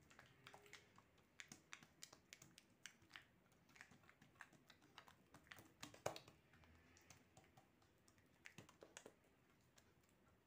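Faint, irregular soft clicks and pats of oiled hands pressing and stretching msemen dough thin against a countertop, with one sharper tap about six seconds in.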